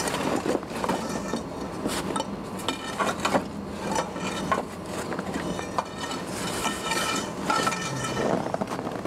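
Metal fire poker clanking, knocking and scraping against burning logs and the steel firebox of an outdoor wood boiler as the fire is stirred, with a steady rush of air underneath.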